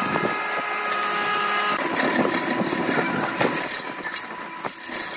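Wood lathe motor running with a steady whine; from about two seconds in, a hand-held turning tool scrapes wood inside the neck of the spinning vessel.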